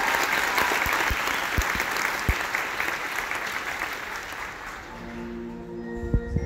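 Audience applause that gradually fades away. About five seconds in, a sustained chord of steady tones comes in from the band, with a couple of low drum hits near the end.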